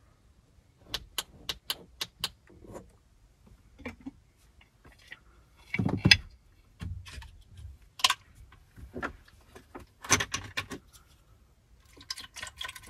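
Cooking gear and small objects being handled. A quick run of sharp metallic clicks comes about a second in, then several clatters and knocks, the loudest about six seconds in.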